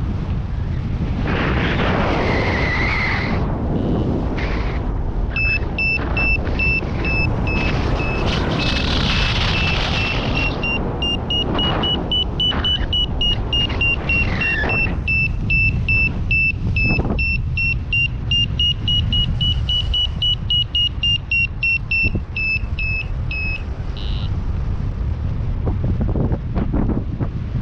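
A paragliding variometer beeps rapidly at a high pitch that rises and falls a little, signalling climb in lift, over steady wind rumble on the microphone. The beeping starts about five seconds in and stops a few seconds before the end.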